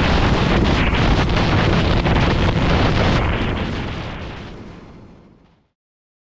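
Heavy wind noise buffeting a helmet-mounted GoPro 10 microphone on a moving motorcycle, a dense rumbling rush. It fades out over the last couple of seconds into silence.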